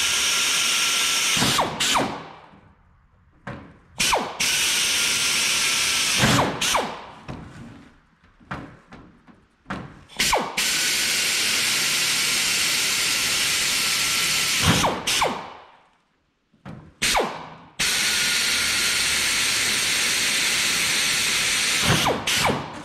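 Pneumatic air drill boring holes through 16-gauge sheet steel, run in about four bursts of a few seconds each. Each burst is a loud hiss of exhaust air over a steady whine that winds down when the trigger is released, with short blips of the trigger in between.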